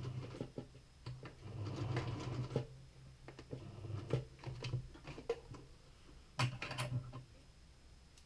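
Electric sewing machine stitching in several short runs with pauses between, mixed with small clicks and taps of hands working the machine.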